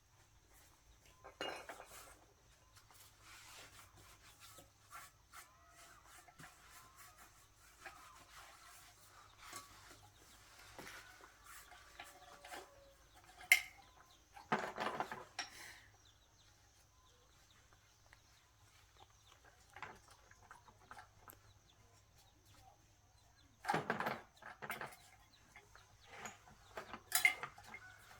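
Intermittent clinks and clatters of metal tools and small motor parts being handled during a motor repair, with a few louder clattering bursts.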